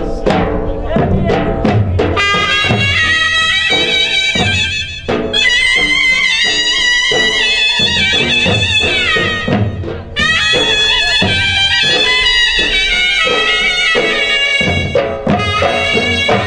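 Gujarati raas folk music played loud: drum strokes, then a reedy wind-instrument melody enters about two seconds in and carries on over the percussion, with short breaks twice.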